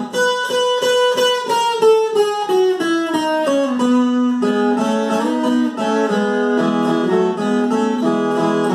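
Viola caipira, the ten-string Brazilian folk guitar, played solo and picked with a thumbpick. It opens with a run of single notes stepping down in pitch, about three or four a second, then settles into a steadier repeating picked pattern.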